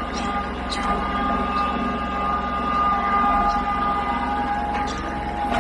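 Tractor engine running steadily, with a constant whine over a low rumble and a few light knocks.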